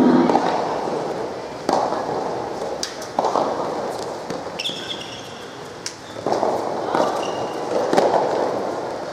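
Soft tennis rally: the soft rubber ball struck back and forth by rackets, a hit every second or two, each with a short echo in the hall. Short high squeaks come about halfway through and again near the end.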